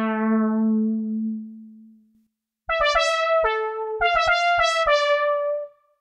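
Synth brass preset 'Op3 Brass' from reFX Nexus 4's Sound of the 70s expansion. A held note fades away, then after a short silence comes a quick phrase of about nine short notes, ending on a longer held note.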